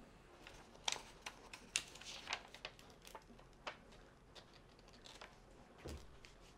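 Crinkling and crackling of paper sheets and a glossy plastic-covered diamond-painting canvas being handled, a quick run of sharp crackles in the first few seconds, then a soft thump about six seconds in.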